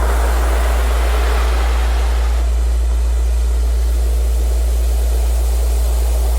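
Recorded surf, its rush of breaking waves swelling near the start and fading, laid over a loud, unchanging low tone played as a Rife healing frequency.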